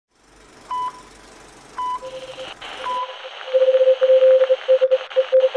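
Radio static with three short high beeps about a second apart, then a lower beeping tone keyed on and off in short and long pulses like Morse code, growing louder about three and a half seconds in.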